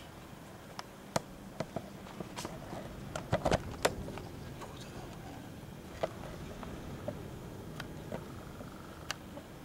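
Strong wind blowing, with scattered sharp clicks and knocks throughout and a cluster of louder knocks about three and a half seconds in.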